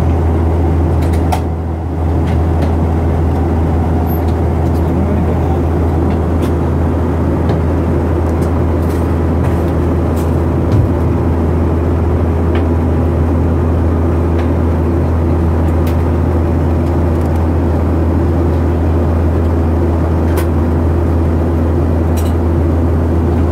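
Steady cabin drone of a Boeing 737 airliner in its climb: jet engines at climb power and rushing airflow, with a strong deep hum and a few steady tones above it. The level dips briefly about two seconds in.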